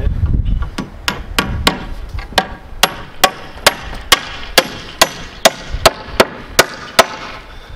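Hammer driving a 16d nail at an angle through a 2x4 brace into a wooden wall stud (toenailing): a steady series of about sixteen sharp blows, two to three a second.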